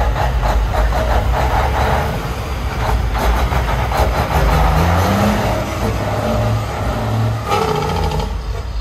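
Heavy diesel truck engine running, its pitch rising and falling a little.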